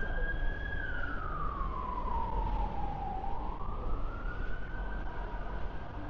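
Emergency vehicle siren wailing: one slow cycle that falls in pitch over about two seconds, then rises again and holds high. A steady low rumble runs underneath.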